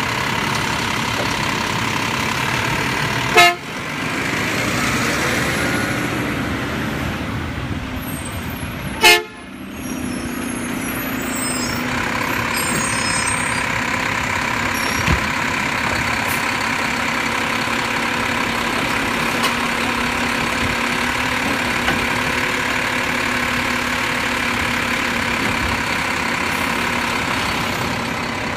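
Mack LEU refuse truck with a Labrie automated side-loader running, its engine and hydraulics making a steady heavy noise. Two short, loud, ringing sounds stand out about 3 and 9 seconds in. After the second, a steady hum joins as the truck moves off along the street.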